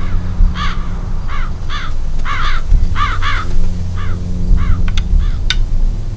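Crows cawing over and over, with short harsh calls often in quick pairs, over a low steady rumble. Two sharp clicks come about five seconds in.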